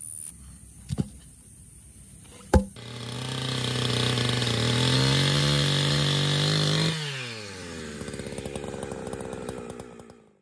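Two sharp clicks, then a small petrol engine runs at high revs for about four seconds. Its pitch then falls as it drops back to a lower, rougher running speed, and the sound cuts off abruptly near the end.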